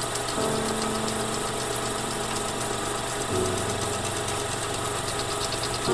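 Background music: sustained low chords that change twice, over a fast, even pulsing beat.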